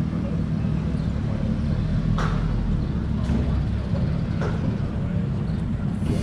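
Kawasaki H2 motorcycle riding along: a steady low drone of engine and wind noise. Three or four short, sharp sounds about a second apart come through in the middle.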